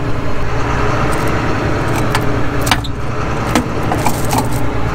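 A John Deere combine's diesel engine idling steadily, with a few sharp metallic clinks and rattles over it.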